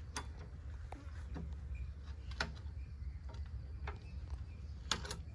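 A wrench knocking and clicking against the blade nuts and hub of a toka chaff cutter while a nut holding its blunted blades is worked loose. It gives a few sharp, irregular clicks over a low steady hum.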